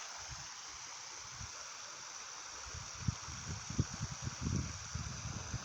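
Large waterfall's steady rush of falling water, with irregular low thumps joining in from about halfway through.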